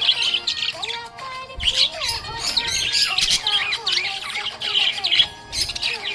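Budgerigar chirping and chattering in quick, busy runs of high notes, with music playing underneath.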